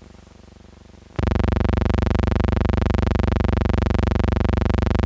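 Faint hiss, then about a second in a loud, steady buzz with many overtones cuts in abruptly and holds. It is soundtrack noise as the film print runs out into blank leader.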